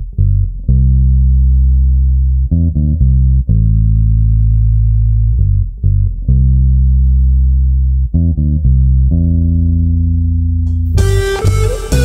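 Instrumental passage of a lo-fi folk song: low guitar and bass notes held for a second or two each. The full band comes in about eleven seconds in.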